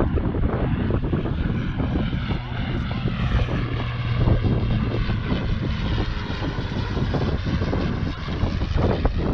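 Strong wind buffeting the microphone, with the drone of a passing motor whose pitch bends as it goes by in the middle few seconds.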